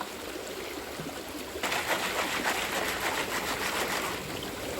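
Creek water running steadily. About a second and a half in, a louder rustling, crackling rush starts, lasts a couple of seconds, then dies away.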